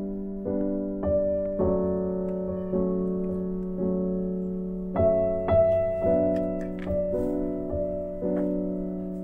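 Background piano music: chords struck about once or twice a second, each fading before the next.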